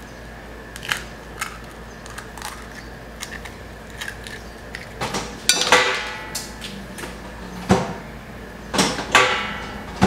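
Eggs being cracked on the rim of a metal frying pan: a few light taps in the first seconds, then sharper knocks about five, eight and nine seconds in, the louder ones leaving the pan ringing briefly.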